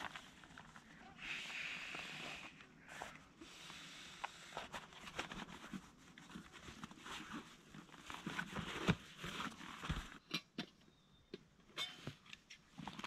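Synthetic fabric rustling and crinkling as a soft blue item is rolled up and stuffed into a sack, with scattered small clicks and taps. The taps grow sharper and more frequent near the end, as small gear is handled.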